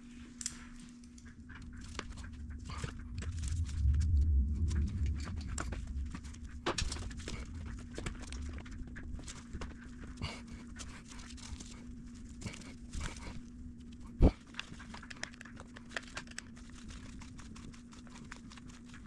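Handling noises, rustles and light clicks, as the Aprilia Tuono V4's throttle bodies are pressed and worked down into their intake boots past a trimmed hose clamp. There is a heavier low rumble of pushing around four seconds in and one sharp knock about fourteen seconds in, over a steady low hum.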